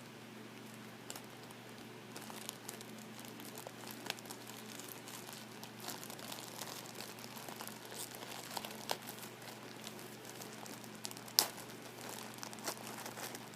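Paper and plastic packaging of panty liners being handled and opened by hand: irregular crinkling and crackling with small clicks, and one sharper snap about eleven seconds in.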